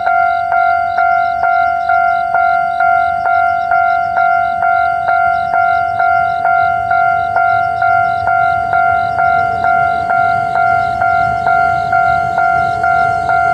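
Japanese railway level-crossing warning bell ringing on and on, a bright metallic ding repeated evenly a little over twice a second, each stroke fading before the next. It is stuck ringing because a lightning strike knocked out the crossing. A low rumble builds in the second half.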